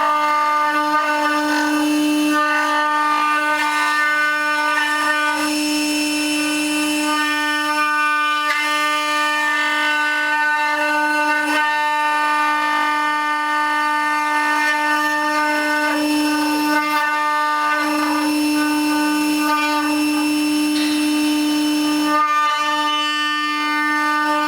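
CNC router spindle running with a steady, high whine while it machines wood. The upper tones shift every second or two as the cutter's load changes.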